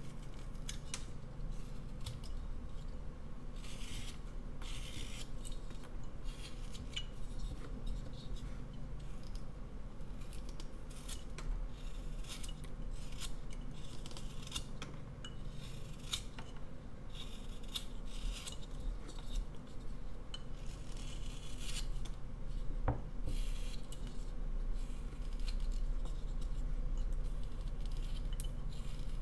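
Carving knife shaving and slicing a basswood blank in short, irregular strokes, each cut a dry scraping rasp, with one sharp tick a little after two-thirds through.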